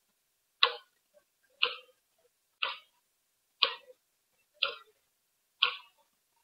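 Clock ticking steadily, one sharp tick each second, six ticks with silence between them.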